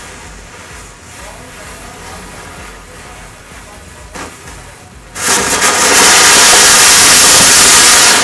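A Diwali fountain firework (anar) catches about five seconds in and sprays sparks with a loud, steady hiss, which falls away quickly right at the end. Faint background music plays before it.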